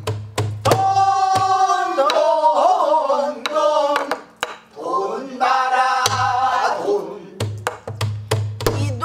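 Pansori singing accompanied on a buk barrel drum. Sharp stick clicks on the drum's wooden body keep the rhythm, and low thumps from the palm on the drumhead come in clusters at the start and again over the last few seconds.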